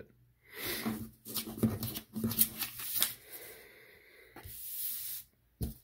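Sheets of paper being handled and slid across a tabletop, a rustling with small ticks in two stretches, then a single short tap near the end.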